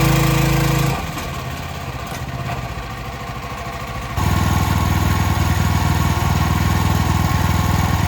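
The APW4400 pressure washer's 459cc petrol engine running steadily. It drops to a lower level about a second in, then comes back louder and stronger about four seconds in.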